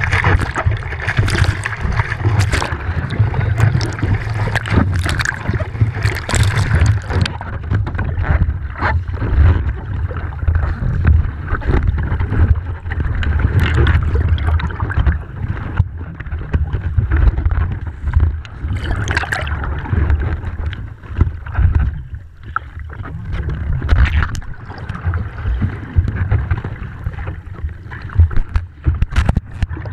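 Surf water sloshing and splashing around a waterproof action camera at the surface, with sharp splashes over a heavy low rumble; about seven seconds in the sound turns muffled and dull as the camera goes underwater, turbulent water churning and rumbling against the housing.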